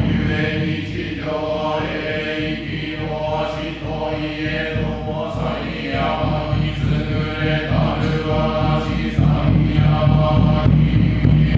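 A Shinto priest chanting a norito prayer in long drawn-out held tones, breaking for breath every second or two.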